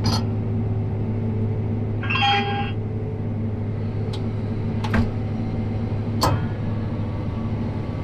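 Combine running while unloading grain into a grain cart, heard as a steady low drone inside the cab. About two seconds in there is a short chirping tone, and later two sharp clicks.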